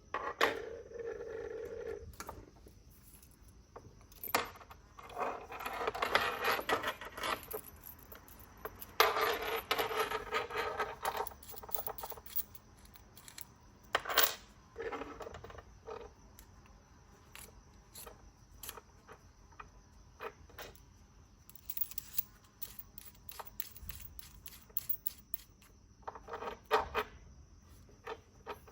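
Workbench handling noises: scattered sharp clicks and clacks of small hard parts, with several stretches of scraping and rustling, the longest about five seconds in and about nine seconds in.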